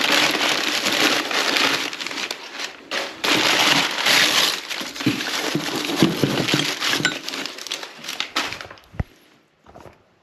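Crumpled brown kraft packing paper rustling and crinkling as a hand digs through it inside a cardboard box. It dies down about eight and a half seconds in, leaving a couple of light knocks.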